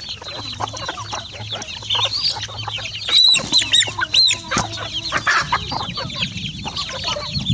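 A flock of chickens and chicks feeding: a dense, overlapping stream of short high chick peeps over hens clucking, busiest and loudest about three to four seconds in.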